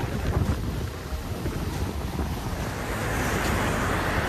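Wind buffeting the microphone over water rushing along the hull and wake of a Twin Vee 260GFX catamaran running under its twin Yamaha 200 hp outboards. The rush of water grows louder near the end.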